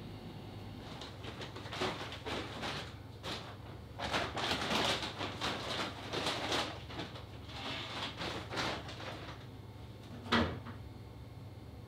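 Kitchen handling noises: a run of clinks, rattles and knocks as things are moved about at a counter, with one louder knock about ten seconds in, over a low steady hum.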